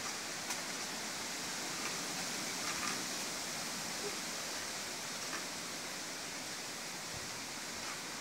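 Strong wind rushing through trees and their leaves: a steady hiss with no break.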